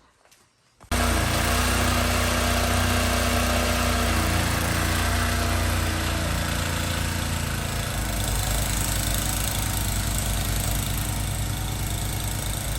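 A snowblower's small gasoline engine runs steadily. It comes in suddenly about a second in, and its note shifts a little partway through.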